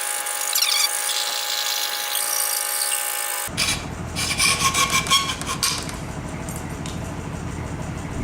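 Coping saw cutting wood with rapid back-and-forth strokes. The sound changes abruptly about three and a half seconds in, with a quick run of strokes just after.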